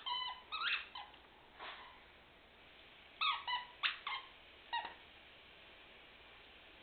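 Squeaky plush dog toy squeaking in short high-pitched squeaks as a Cairn terrier chews it: a few squeaks in the first two seconds, then a quick cluster of about five between three and five seconds in.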